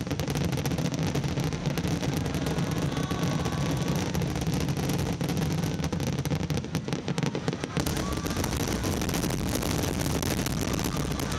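Fireworks display: a dense, continuous crackle of many shells and fountains going off at once, over a steady low rumble.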